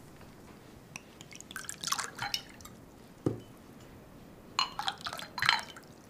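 Drink poured from a glass bottle into a small drinking glass, in two short spells of glugging and splashing, with a single knock about halfway between them.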